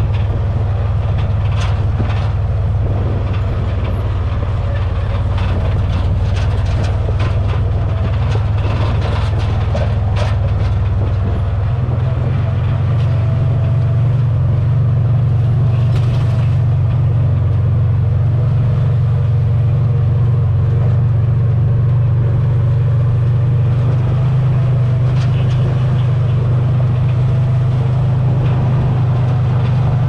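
Gator utility vehicle's engine running steadily while riding down a rough trail, with knocks and rattles over bumps. The engine note steps up slightly about twelve seconds in.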